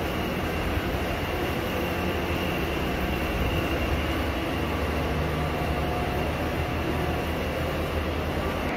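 Steady low rumble with a hiss above it and a faint high whine, unchanging throughout.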